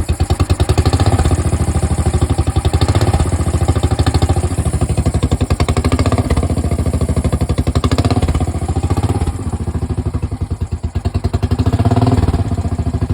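Royal Enfield Bullet single-cylinder engine running with a steady beat, revs rising and falling several times and sagging low near the middle. It doesn't quite want to tick over, which the owner puts down to the changed air filter.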